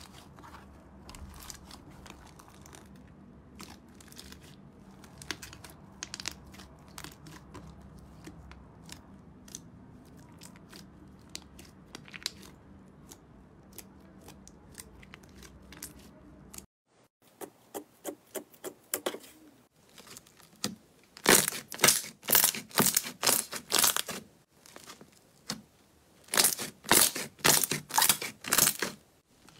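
Hands kneading and squishing thick slime with faint sticky clicks and crackles, then, after a cut about halfway through, a soft pink slime pressed and squeezed by hand, giving two loud runs of rapid crackling pops.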